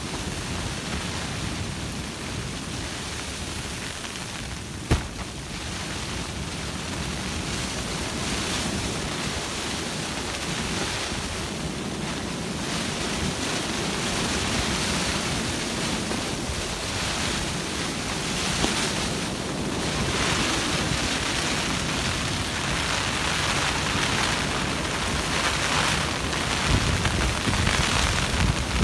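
Storm wind gusting and rushing around a tarp shelter, with rain on the tarp and wind buffeting the microphone. The gusts build toward the end, and there is a single sharp tap about five seconds in.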